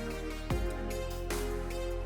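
Electronic background music with a steady beat, a kick thump a little under once a second over sustained synth chords.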